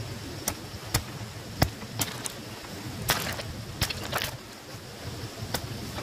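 Freshly cut buckwheat stalks being gathered and handled by hand: irregular sharp snaps and crackles of the stems, about ten in six seconds.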